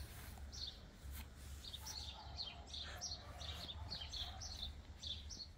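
Small birds chirping and singing repeatedly in the background, quick high chirps over a faint low rumble.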